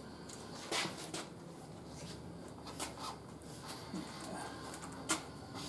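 Scattered knocks and clinks of a tire lever and manual tire changer while a new tire's bead is worked over the steel rim. The two sharpest knocks come about a second in and near the end.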